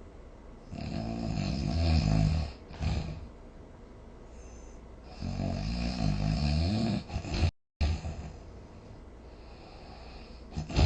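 Snoring during sleep: two long, rough snores about four seconds apart, the second wavering up and down in pitch and cut off by a brief dropout, with a third snore starting at the very end.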